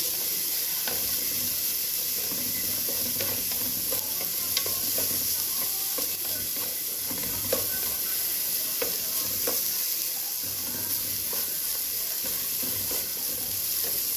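Chopped onion, garlic and peppers sizzling in olive oil in a large aluminium pot, with a steady hiss. A stirring utensil scrapes and clinks irregularly against the pot as they are stirred.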